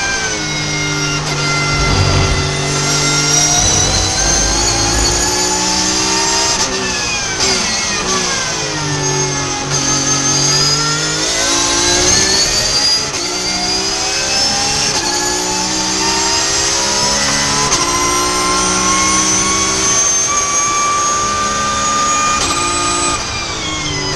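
Porsche 991.2 GT3 Cup race car's flat-six engine heard from inside the cockpit: revs falling under braking and downshifts, then climbing again in repeated rising sweeps at full throttle, the pitch dropping back at each upshift through the gears.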